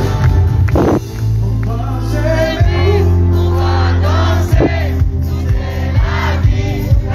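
Live band music in the gipsy rumba style: several voices singing together over a strong, steady bass line, with sharp percussive strokes throughout.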